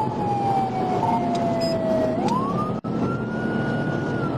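Police cruiser siren on wail, heard from inside the pursuing car: the tone slides slowly down, climbs quickly about two seconds in, and holds high before starting down again. Underneath is the steady road and engine noise of the cruiser at high speed.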